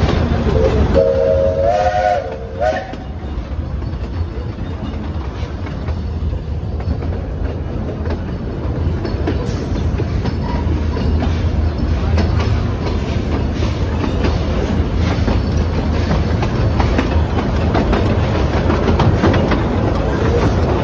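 Carriage of a narrow-gauge steam train running along the track: a steady heavy rumble with the clatter of wheels over the rails. About a second in, a short whistle sounds for under two seconds, wavering and stepping up in pitch.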